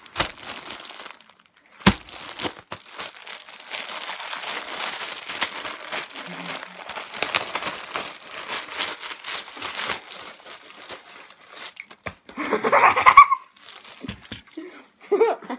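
Plastic bread bag of mini bagels crinkling and rustling as hands open it and reach in, with a sharp knock about two seconds in. A brief loud burst of sound comes near the end.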